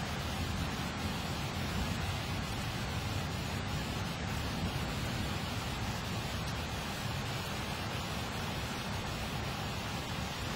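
Steady low road and engine noise heard inside a car's cabin, with no sudden sounds.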